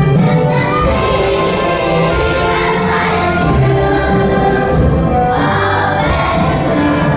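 A choir of second-grade children sings with instrumental accompaniment.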